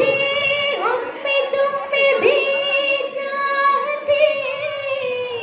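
A girl's solo voice singing an Urdu ghazal, holding long drawn-out notes with quick ornamental turns in the melody.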